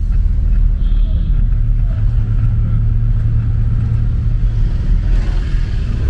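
Vehicle driving on city roads: a steady low engine and road rumble, with the engine note settling into an even hum about two seconds in.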